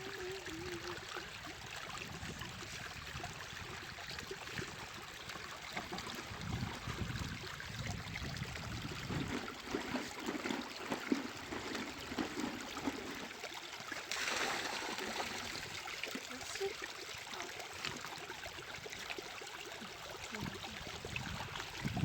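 Water running steadily, like a small stream or trickle, with a few soft low knocks partway through and a brief louder rush of water about two-thirds of the way in.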